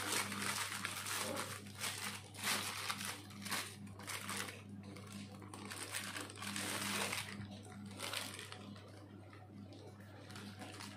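Clear plastic wrap crinkling and rustling as hands fold it around a portion of rice, in a string of irregular rustles that thin out after about eight seconds, over a steady low hum.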